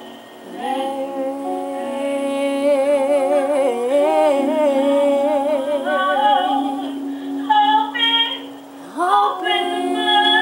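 Gospel singing: a female voice holds a long note with vibrato, then sings a few short notes and starts a new phrase near the end, over a steady sustained chord.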